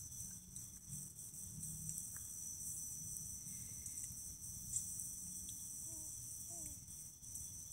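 Crickets chirping in a steady, high-pitched chorus, with a low hum underneath.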